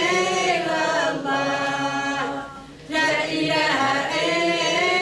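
A woman singing a religious chant unaccompanied, holding long, gliding notes, with a short pause for breath a little past halfway.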